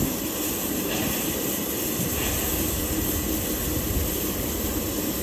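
Steady rumble and hum of a passenger train close by.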